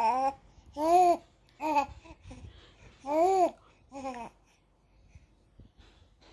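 A baby cooing and babbling: about five short vocal sounds, each rising and falling in pitch, in the first four seconds or so.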